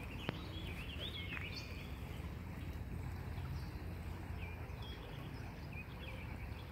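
Songbirds chirping in short, warbling phrases over a steady low outdoor rumble, with one sharp click about a third of a second in.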